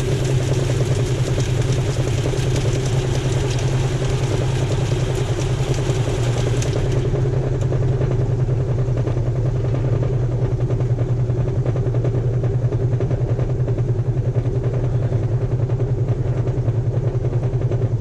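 Whirlpool direct-drive top-load washing machine running steadily on its final spin, with a low, even motor hum. A higher hiss drops away about seven seconds in. The spin runs smoothly with the new clutch fitted.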